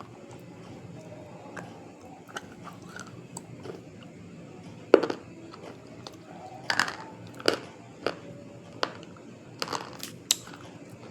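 Close bites and chewing of a crunchy white substance: a few soft crunches at first, then a run of sharp, louder crunches from about five seconds in.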